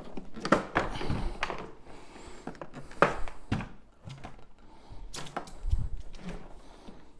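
A series of sharp clicks and knocks, with quieter handling noise between, from the plastic body of a Sebo X8 upright vacuum being handled.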